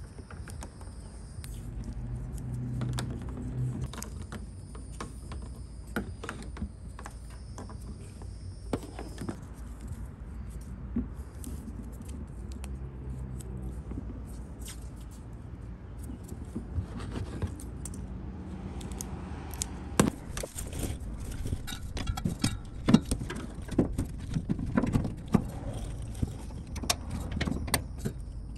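Hands handling a fuel pump and its wiring plug, with many small irregular clicks and rattles of plastic and metal parts, more frequent in the second half, over a steady low rumble.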